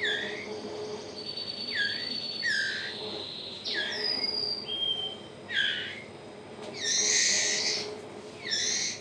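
White-rumped shama chicks, about 20 days old, begging while being hand-fed: repeated short calls that slide down in pitch, with a couple of thin whistles and a longer harsh, hissing call about seven seconds in.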